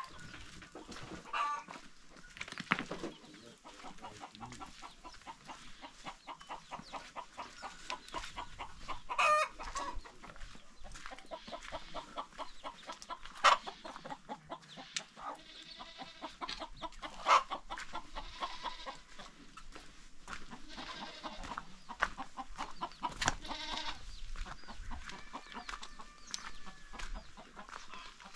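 Chickens clucking, with quick crunching steps on stony ground and a few sharper clicks.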